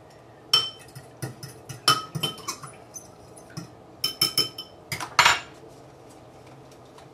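Metal fork clinking against a ceramic bowl as it stirs a liquid broth-and-butter injection mixture: a run of irregular, ringing clinks, closer together around four seconds in, with a louder clatter just after five seconds.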